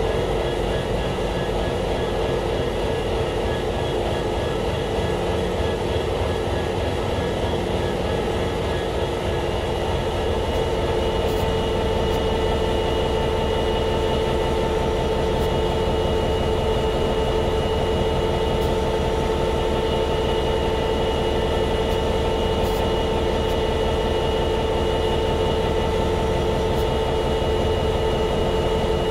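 EMD 12-710G3C-EC twelve-cylinder two-stroke diesel prime mover of an F59PHI locomotive idling, a steady low beat under a steady whine. The whine grows a little stronger about ten seconds in.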